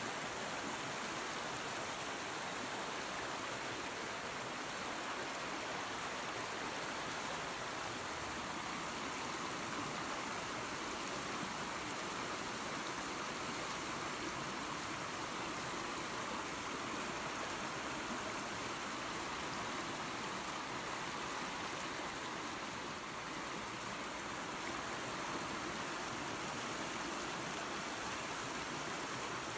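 Creek water and a small waterfall rushing steadily, an even hiss of running water.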